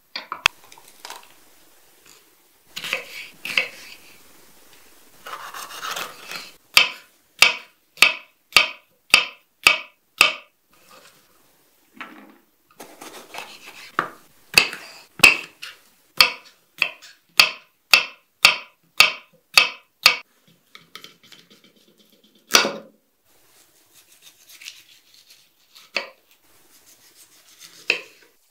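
Kitchen utensils knocking: two runs of sharp, evenly paced knocks, about one and a half to two a second, with scattered clatter between them and one heavier knock near the end.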